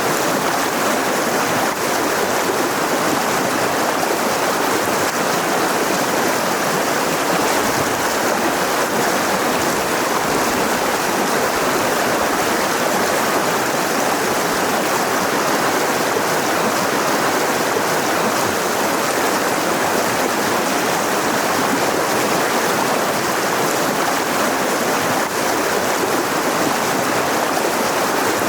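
Mountain river rushing steadily over rocks: a continuous, even water noise with no breaks.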